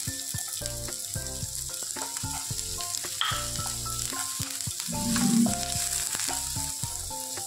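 Chopped onion and garlic sizzling in melted butter in a nonstick frying pan, stirred with a spoon.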